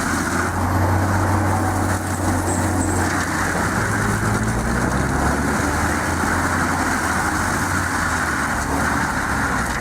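AHWI RT 800 forestry mulcher, a 630-horsepower machine, running steadily under load as it works on a stump, with a deep engine hum under a steady grinding noise.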